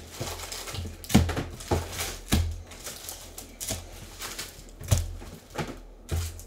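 Cardboard trading-card hobby boxes handled close to the microphone: several sharp knocks and taps of cardboard on the table, with light rustling between them.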